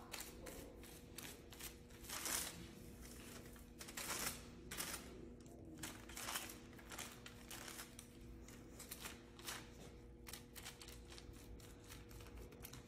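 Tint brush stroking hair lightener down a hair slice laid on a sheet of foil, with soft, irregular brushing scrapes and light crinkles of the foil. A faint steady hum sits underneath.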